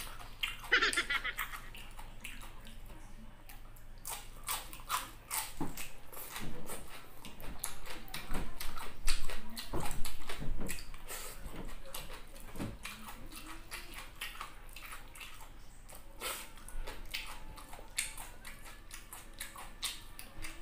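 Close-miked chewing and mouth sounds of a person eating by hand: irregular wet clicks and lip smacks, louder for a few seconds in the middle.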